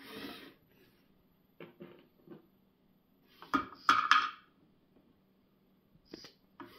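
Plastic clicks and clatter from a LEGO robot arm and its bricks as the arm swings between cups and a brick is set in place. The loudest clatter comes about three and a half to four and a half seconds in, with lighter clicks before and near the end.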